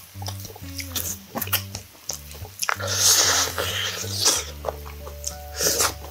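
Close-miked eating: lips smacking, chewing and sucking as meat is bitten off a grilled pork back rib bone, loudest about three seconds in. Background music with a steady bass line plays underneath.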